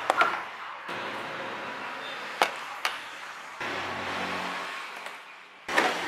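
Sharp plastic clicks and snaps as push-type trim clips are pried out of a plastic radiator cover with a clip-removal tool: one right at the start, two close together about halfway, and one near the end, over a steady background noise that changes abruptly at edits.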